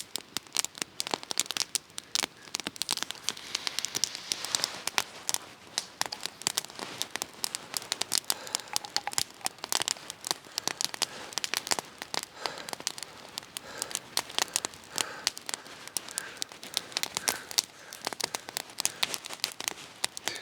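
Campfire of split cedar burning, the wood crackling and popping in quick, irregular snaps.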